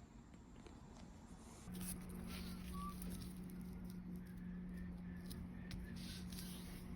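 Faint scraping and rubbing strokes of leather being worked by hand, over a low steady hum that starts about two seconds in.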